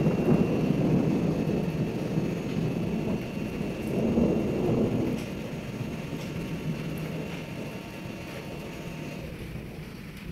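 Thunder rumbling over falling rain. The rumble swells again about four seconds in, then slowly dies away, leaving the rain.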